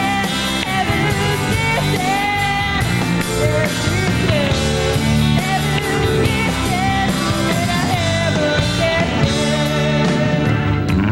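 A woman singing a pop-rock song live into a microphone, backed by a full rock band of drums, bass, electric guitar and keyboards.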